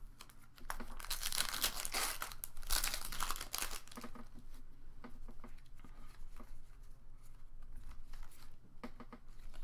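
A foil Pokémon booster pack being torn open, its wrapper crinkling for about three seconds. This is followed by quieter rustling and small clicks from the cards being handled.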